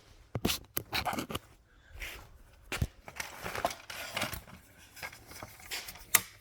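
Irregular metal clicks and short scrapes of a wrench and ratchet working the chain-tightener nuts on a small pit bike's rear axle.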